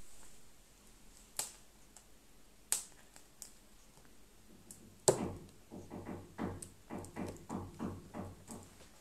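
Hard plastic surprise egg handled in the hands: a few small clicks of the plastic shell. About five seconds in, a sharper click, then a steady run of short pitched pulses, about three a second.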